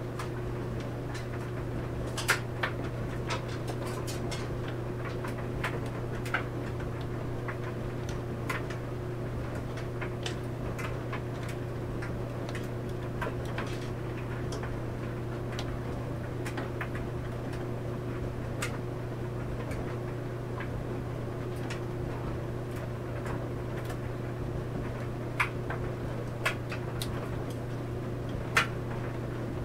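Clothes dryer running with a steady low hum, its tumbling load making irregular light clicks and ticks, with a few sharper clicks, mostly near the end.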